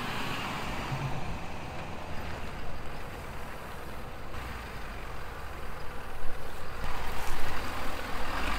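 Ford F-250 Tremor pickup with a 6.7-litre high-output diesel, driving up and over curbs: engine and road rumble that gets louder and rougher from about six seconds in.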